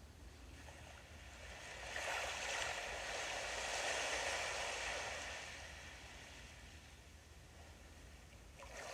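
Sea waves washing onto the shore: one wave swells up about two seconds in, rushes and then fades away, and the next begins building near the end.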